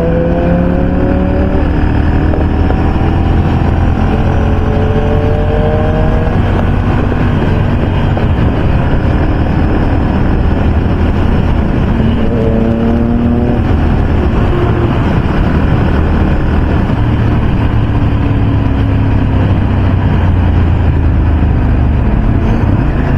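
Motorcycle riding at speed: a steady roar of engine and wind. An engine note rises in pitch three times, near the start, about five seconds in and about twelve seconds in, as the bike accelerates.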